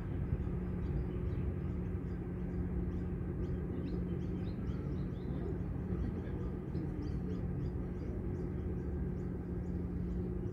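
Outdoor ambience: a steady low rumble with a constant hum under it, and faint short bird chirps scattered throughout.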